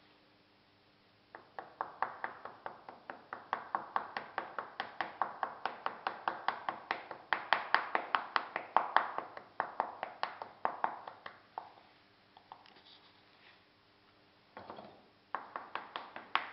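Quick, sharp taps of a hand tool on a wooden casting pattern bedded in moulding sand, about five a second for some ten seconds, then again briefly near the end: rapping the pattern loose before it is drawn from the sand mould.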